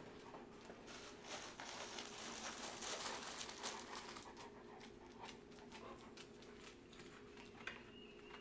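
Dogs' claws clicking and pattering on a concrete floor, faint and irregular, with a steady hum in the background.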